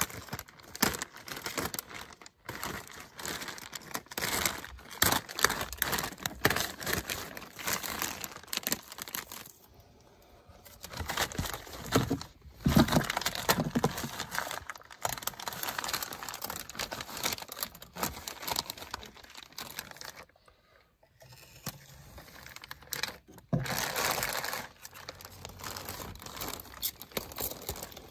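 Clear plastic sheeting crinkling and rustling as it is handled, pulled and cut with a small blade. The sound is irregular and crackly, with two brief lulls.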